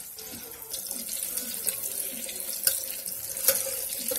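Coated shrimp deep-frying in a pot of hot oil: a steady sizzling hiss with scattered crackles and pops, a sharp pop near the end.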